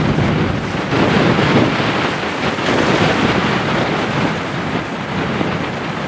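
Strong storm wind of about 20 to 30 mph buffeting the microphone: a dense rushing noise that swells and eases in gusts.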